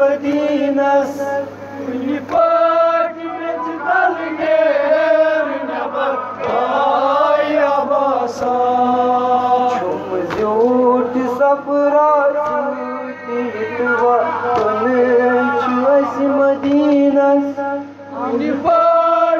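A male reciter singing a noha, a Shia lament in long, melismatic held notes, with other voices chanting along.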